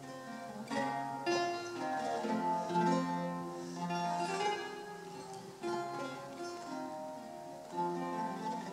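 Solo eight-course Renaissance lute played fingerstyle: Elizabethan music of plucked single notes and chords, each note ringing on as new ones are plucked.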